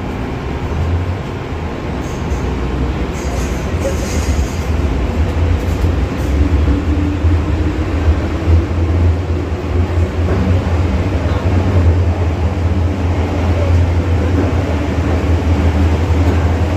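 First-generation MTR M-Train metro train running, a loud steady low rumble of wheels and traction that grows louder over the first several seconds. A faint whine rises in pitch partway through.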